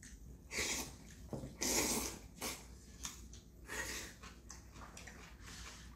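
Black bean noodles being slurped and chewed off chopsticks: about four short, wet slurps, the loudest about two seconds in.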